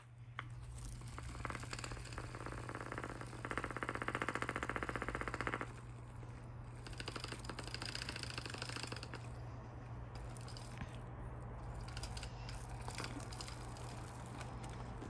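Kittens playing, making scattered scrabbling, clicking and scraping noises over a steady low hum. About three seconds in, a fast rasping scratching lasts about two seconds and is the loudest part.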